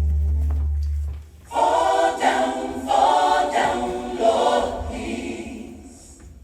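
A deep held bass note dies away about a second in, then a gospel choir sings a few short phrases in harmony, fading out near the end.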